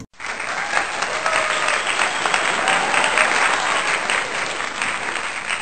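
Applause from an audience, starting suddenly just after the start and running steadily as a dense clapping wash.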